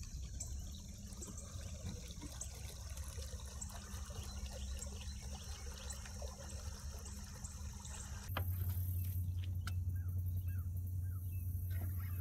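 Quiet lake ambience: faint water sounds under a steady high hiss. About eight seconds in it cuts to a louder, steady low hum.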